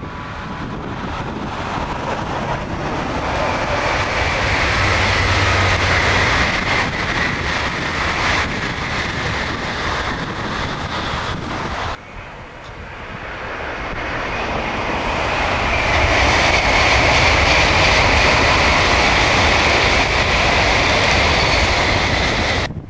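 Shinkansen bullet trains of the 300 and 500 series passing at high speed, a loud rushing noise. The first pass builds over a few seconds and holds, then cuts off suddenly about halfway through. A second pass comes in quieter and builds to an even, loud rush.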